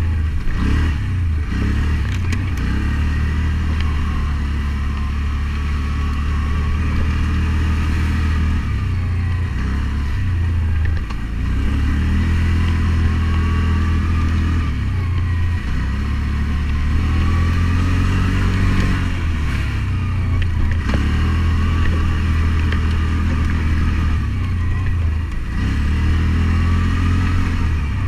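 ATV engine running as the quad is ridden along a trail. The revs drop and pick back up several times as the throttle is eased and reopened.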